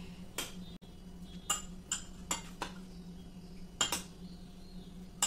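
A metal utensil clinking against a glass plate and dishes, about seven separate clinks at uneven intervals, while cutlets are handled in egg wash.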